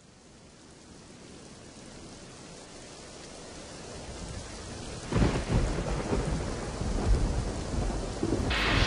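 Thunderstorm: steady rain fades in and builds, then a loud rumble of thunder breaks about five seconds in and rolls on, with the rain growing louder near the end.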